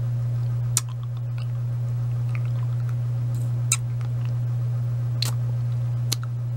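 Wet mouth sounds of a hard lollipop being sucked, with a few sharp clicks of the candy against the teeth, over a steady low hum that is the loudest thing throughout.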